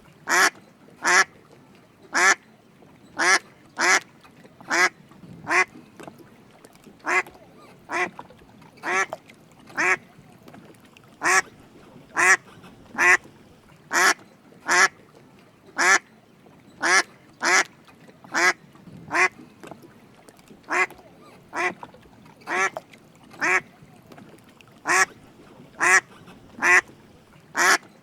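Drake mallard duck quacking in a steady series of short raspy calls, roughly one call a second and fairly even in loudness.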